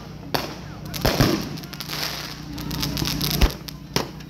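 Consumer firework fountain spraying sparks with a steady hiss, with several sharp firework bangs over it, the loudest about three and a half seconds in.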